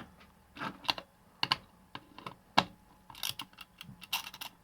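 Irregular sharp plastic clicks and taps from handling a kitchen timer's plastic case and mechanism, the sharpest click a little past halfway.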